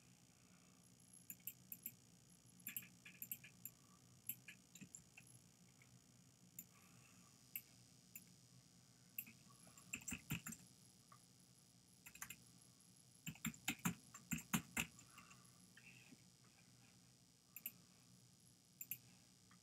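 Faint computer mouse clicks and keyboard keystrokes: scattered single clicks, with a quick run of keystrokes about thirteen to fifteen seconds in.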